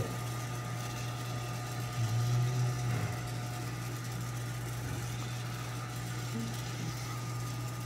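Imextech electric coffee roaster running after the roast: a steady low motor and fan hum during automatic cooling of the beans, swelling a little about two seconds in.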